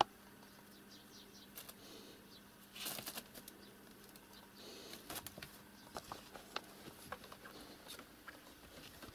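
Faint rustling and scattered light clicks and taps as a kitten clambers over papers and objects on a cluttered desk, with a short burst of rustling about three seconds in.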